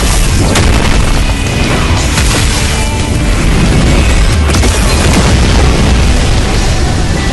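Loud music overlaid with deep booming explosion sound effects, dense and continuous with no break.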